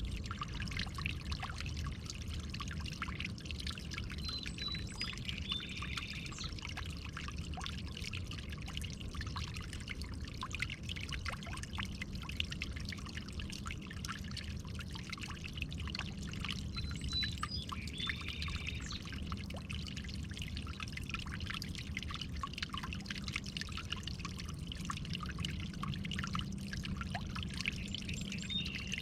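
Running water trickling and splashing steadily, with a couple of brief high bird chirps.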